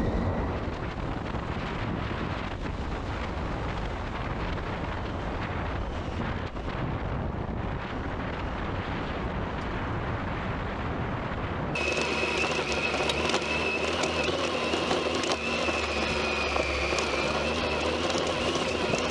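Triumph Tiger 800 adventure motorcycle riding up a loose gravel track: engine running under wind and tyre noise. A little over halfway through, the sound changes abruptly to a closer engine note with a steady high whine.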